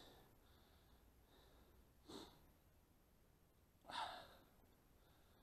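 Near silence broken by two short breathy exhales close to the microphone, one about two seconds in and a louder one about four seconds in.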